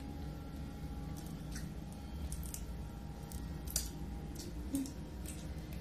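Cooked shrimp shell crackling as fingers peel it off: a scattering of small, sharp clicks, the loudest just under four seconds in, over a steady low hum.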